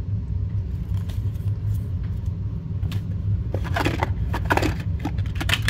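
Steady low hum of a room heater running. About halfway through, hands rummaging in a cardboard box and handling plastic packaging make a run of short clicks and rustles.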